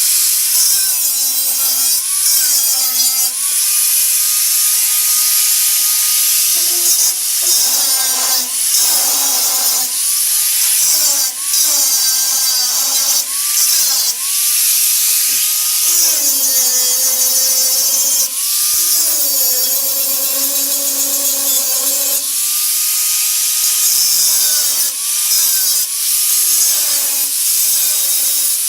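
Power tool cutting through steel bracing bars, the motor's pitch sagging as it bites into the metal and climbing back up each time it is eased off.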